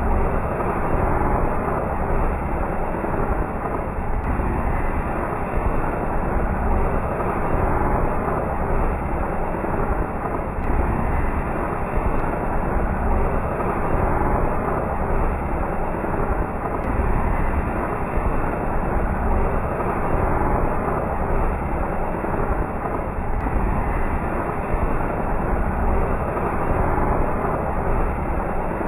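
Chakri ground spinner firework spinning, a steady, unbroken fizzing rush that neither builds nor dies away.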